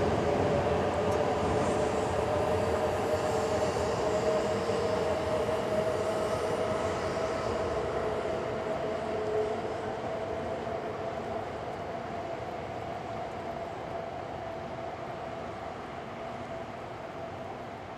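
JR East E926 'East-i' Shinkansen inspection train running by and pulling away: a steady rush of running noise with a steady droning tone in it, fading slowly as the train recedes.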